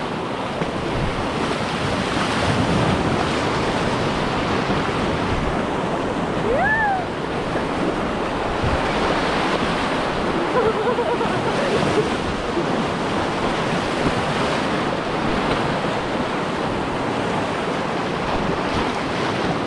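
Whitewater rapids rushing and splashing around an inflatable kayak, a steady loud churn of river water.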